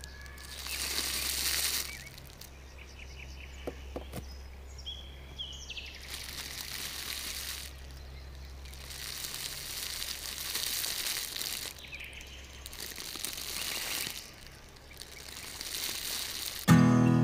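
Sand rustling and crunching in several short bursts as miniature fence pieces and artificial plant tufts are pressed into a sand base. Acoustic guitar music starts near the end.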